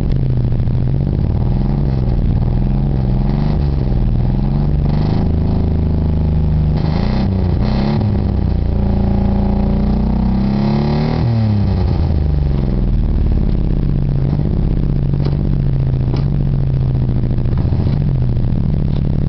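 Geo Metro's small engine being revved again and again from the accelerator pedal, its pitch rising and falling, with one longer climb to high revs about nine to eleven seconds in before it drops back quickly.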